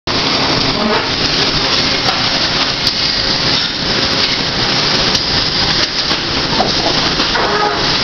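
Sawmill machinery running: the band headrig and its chain and roll conveyors make a loud, steady din with scattered sharp knocks.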